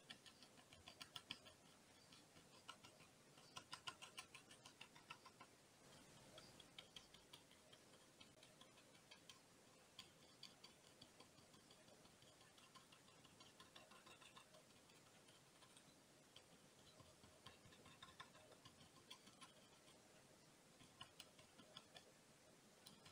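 Faint, irregular runs of soft scratchy taps from a stiff round bristle brush dabbing acrylic paint onto primed hardboard.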